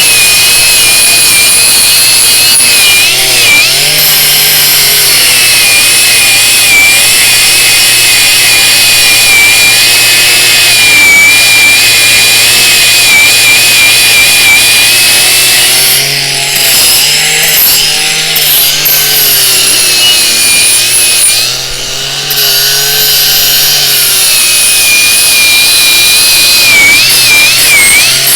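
Parkside Performance PWSAP 20-Li C3 cordless brushless angle grinder running under load, cutting or grinding, its high whine wavering as the disc is pressed into the work. Twice past the middle it briefly drops in speed and level, then picks up again.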